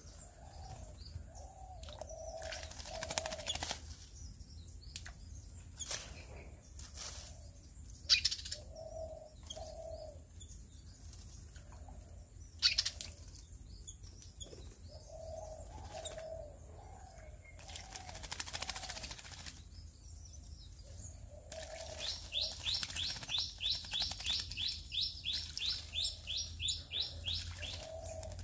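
Common myna splashing and fluttering its wings in a birdbath in several bursts of water noise. A dove coos low, repeated calls in the background, and near the end a bird gives a rapid run of high chirps, about three to four a second.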